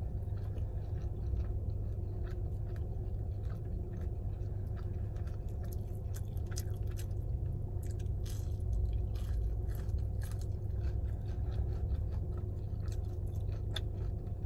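A person chewing crunchy food close to the microphone, with many short crisp crunches, over a steady low hum.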